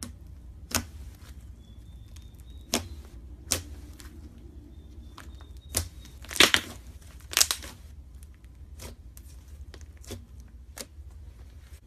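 Handling noises: scattered sharp clicks and crackles, loudest in a short crinkly cluster about six and a half seconds in and another about a second later.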